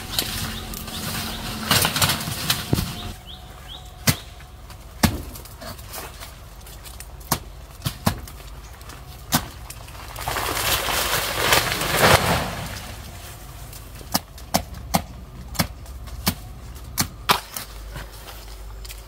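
Irregular sharp knocks of a knife chopping into the soft stem of a wild banana plant, with a louder rustling swell lasting a few seconds near the middle.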